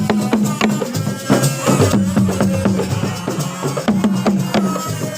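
Loud, fast percussion music: dense drumming with many sharp strikes and repeated pitched drum notes.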